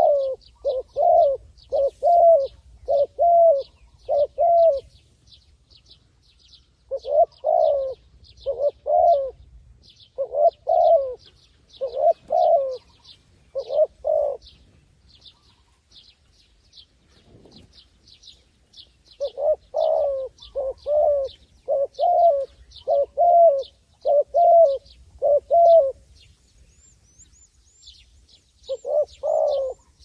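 A dove cooing in runs of five or six low coos, with gaps of a few seconds between runs. A thin, high chirping repeats a few times a second underneath.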